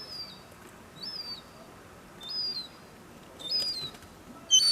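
Young seagull calling: a thin, high, whistled call repeated about five times, roughly once a second, each note rising, holding briefly, then dropping. The last call, near the end, is louder.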